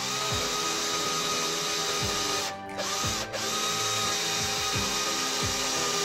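AEG cordless drill running, boring into a metal door frame, with a steady motor whine. It stops briefly twice, about two and a half and three and a quarter seconds in.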